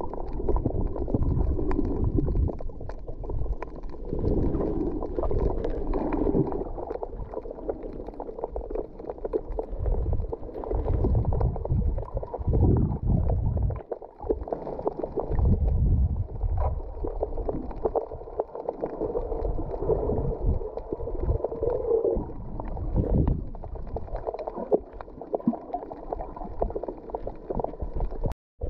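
Muffled underwater sound of water sloshing and gurgling against a camera's waterproof housing, with irregular low knocks and rumbles that swell and fade. The sound is dull, with little above the low and middle range.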